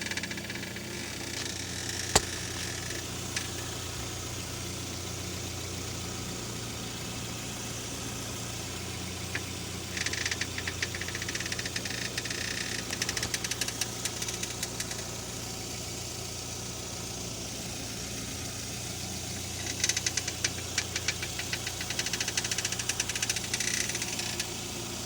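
Car engine idling while parked, with two spells of rapid creaking and grinding from the front end as the steering wheel is turned, each about five seconds long: about ten seconds in and again about twenty seconds in. A noise like this is often a sign of worn tie rods, ball joints or strut mounts.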